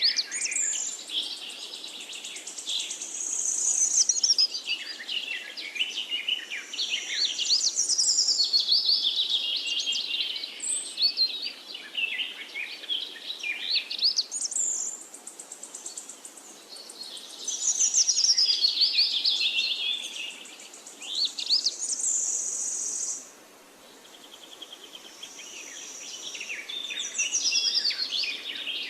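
Several forest birds singing over one another in a dense chorus of quick, high chirping and whistled phrases. It thins out briefly about two-thirds of the way through, then picks up again.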